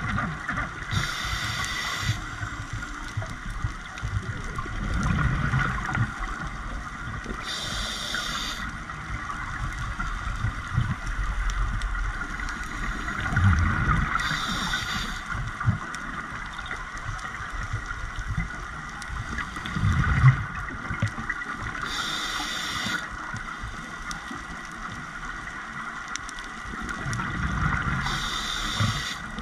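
Scuba diver breathing through a regulator, heard underwater: a brief hiss of inhalation about every seven seconds, five times in all, with low gurgling rumbles of exhaled bubbles between them, over a steady hum.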